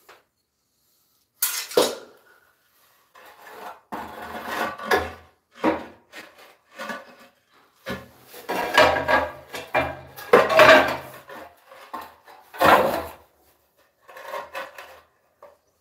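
Large ceramic floor tile scraping and rubbing as it is slid and shifted into place by hand, in a series of irregular rasping scrapes and knocks with short silent gaps between them.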